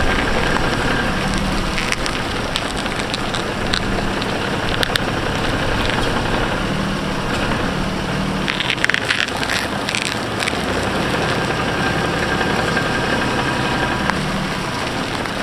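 A 2005 Infiniti G35 running while its wheels are turned, with steady ground noise from the tyres and scattered small clicks and crackles. No creak from the front suspension stands out, which the driver takes to mean the new ball joint has cured the creaking.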